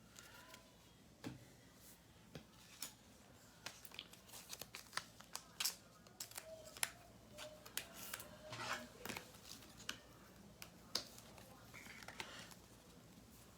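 Trading cards and plastic card sleeves being handled at close range: a string of faint clicks, slides and rustles.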